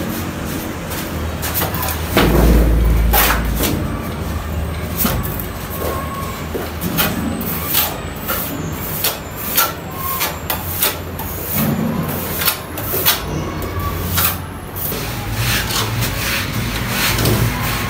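Hand trowel slapping and scraping cement mortar onto the underside of a concrete beam against a straightedge: irregular taps and scrapes, over a low background rumble that swells about two seconds in.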